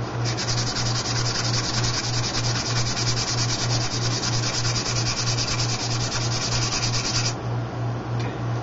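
A plastic propeller blade rubbed quickly back and forth on coarse sandpaper, giving a fast, even scratching that stops about seven seconds in. The heavy blade is being sanded on its back face to balance the prop. A steady low pulsing hum runs underneath.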